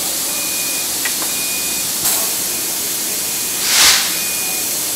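Compressed air from a train's brake hoses hissing steadily, with a louder burst of air venting for about half a second near the end. A short faint high beep repeats roughly once a second, and there are a couple of light clicks.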